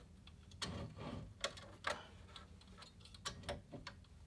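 Light, irregular clicks and small knocks from a Remington Streamliner portable typewriter and its case as they are handled, about eight sharp clicks spread unevenly through the few seconds.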